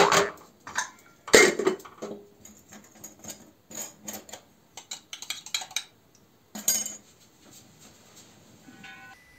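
Metal kitchenware clattering: a pot and lid set on a gas stove and steel cups handled on a stone counter. A loud clank about a second in, a run of lighter clinks and taps, and another clank near seven seconds.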